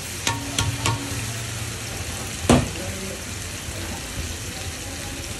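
Egg dish frying on a large flat steel griddle (tawa), with a metal spatula clanking against the pan: three quick clanks in the first second and one louder clank about two and a half seconds in.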